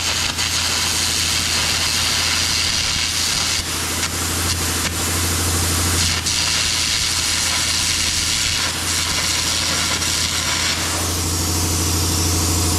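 Air carbon arc gouging on a steel excavator boom: the ArcAir torch's arc, fed with compressed air at 70 psi through a 3/16-inch carbon rod, makes a loud steady rushing blast over a low hum as it blows out molten metal.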